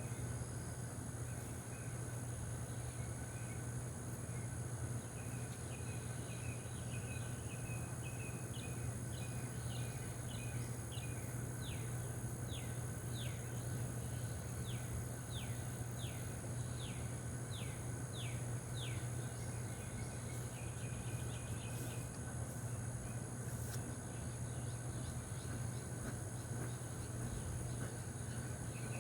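Outdoor ambience with steady high insect trilling and a low steady hum. A bird sings a long series of quick falling notes, about two a second, from about six seconds in until roughly two-thirds of the way through.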